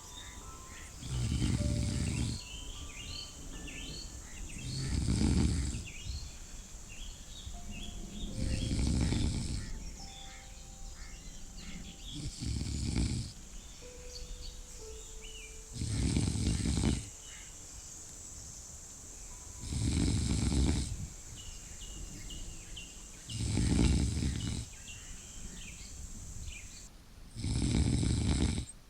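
A person snoring slowly and evenly: eight snores, each about a second long, one every three to four seconds.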